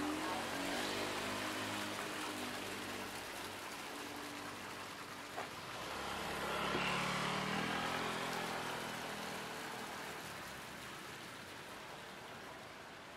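City street traffic: vehicle engines passing by over a steady hiss of road noise, one pass near the start and a louder one swelling and fading about halfway through. A single sharp click comes shortly before the second pass.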